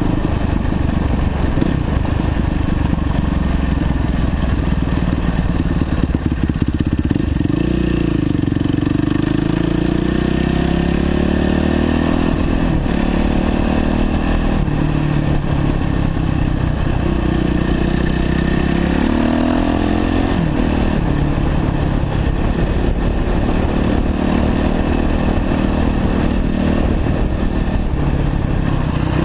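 2009 Yamaha YZ450F's single-cylinder four-stroke engine running while the bike is ridden, its pitch rising and falling several times as the revs change.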